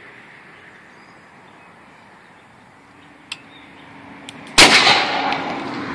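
Shoulder-fired potato cannon launching a golf ball: one sudden loud blast about four and a half seconds in, trailing off into a lingering rush.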